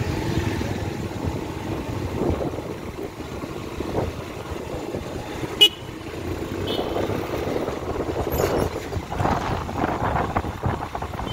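Road traffic noise with one short, sharp horn toot a little past halfway.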